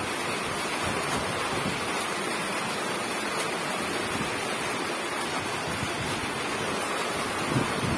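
Steady, even rushing noise with no breaks or rhythm.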